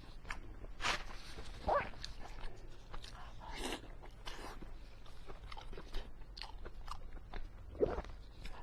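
Close-miked mukbang eating: a person biting into and chewing fatty pork belly, with many small wet mouth clicks and a few louder bites.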